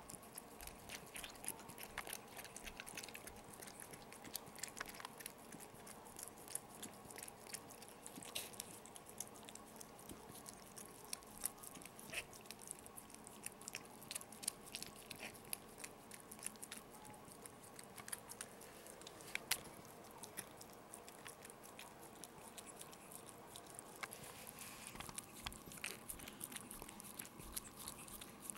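Maltese mother dog licking and chewing at her newborn puppy to clean it after the birth: a faint run of irregular wet clicks and smacks, with one sharper click about two thirds of the way through.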